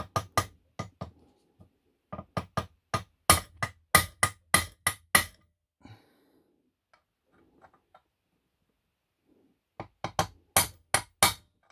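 Hammer striking a steel punch against the rim of an aluminium scooter crankcase's bearing seat, in runs of quick, sharp metallic taps with a pause before the last run. This is the staking of a worn, too-loose bearing bore, raising its edge so the bearing will fit tight.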